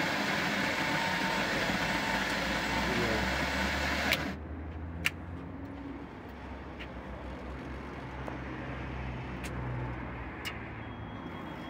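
Street espresso vending machine running as coffee is dispensed into a paper cup. A loud steady whirr stops with a click about four seconds in, then a lower machine hum continues with a few sharp clicks.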